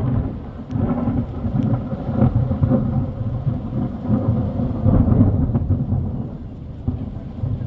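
Rolling thunder rumbling in several swells, easing off near the end, with rain falling.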